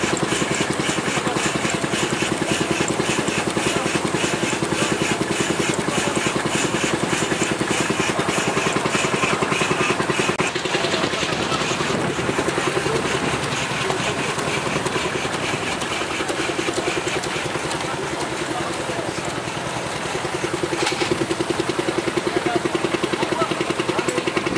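Portable steam engine running at a steady speed, with a fast, even beat.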